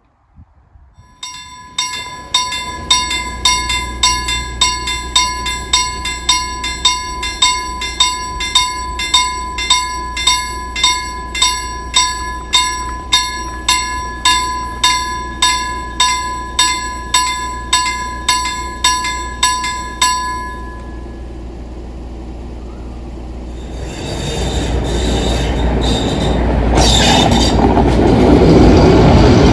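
Level-crossing warning bell ringing in a steady rhythm, roughly three strokes every two seconds, while the full barriers lower, then falling silent about two-thirds of the way through. A Z6 diesel locomotive then approaches and runs over the crossing, growing louder toward the end.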